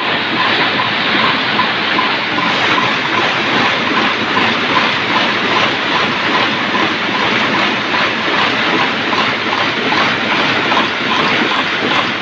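Bolt heading machine running, a loud, steady, dense mechanical clatter as it cold-forms the heads on screw blanks.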